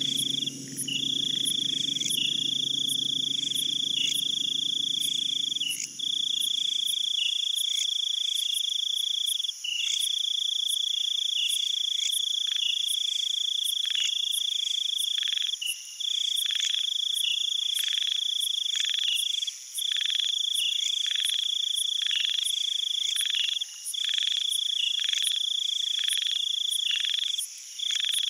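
Insect chorus: a steady high buzz that breaks off briefly every few seconds, with regular clicks about once a second. A low hum underneath stops about seven seconds in.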